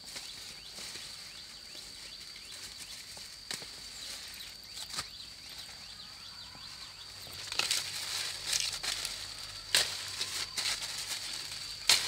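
Leaves and twigs rustling and crackling as vegetation is handled, with a few sharp snaps that grow busier in the second half, over a steady high-pitched drone.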